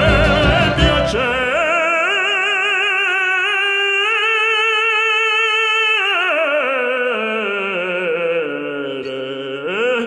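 Operatic baritenor voice singing a long held note with wide vibrato, without words. The accompaniment drops out about a second and a half in. About six seconds in the voice slides down to lower held notes, then climbs again near the end.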